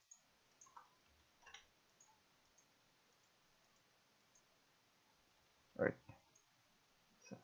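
Faint computer mouse clicks, a few scattered taps, with one louder short knock about six seconds in.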